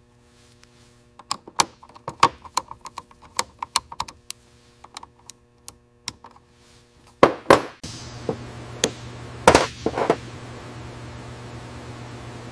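A run of light, irregular clicks and taps, like small hard objects handled on a bench, then a few louder knocks. A steady low hum starts about eight seconds in and carries on under them.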